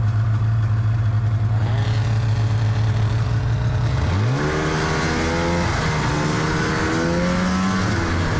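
Snowmobile engine idling steadily, then about four seconds in it revs up. Its pitch then rises and falls with the throttle as the sled is ridden.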